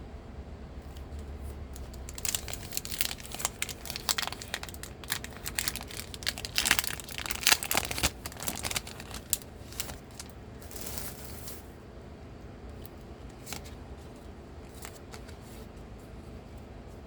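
Foil wrapper of a Pokémon trading card booster pack crinkling and tearing open: a dense run of sharp crackles for several seconds, a short rip, then a few scattered crinkles near the end.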